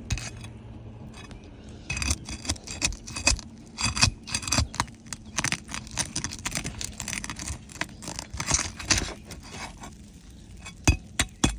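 Irregular scraping and clicking of a tool working under old, brittle roof shingles to loosen them, starting about two seconds in.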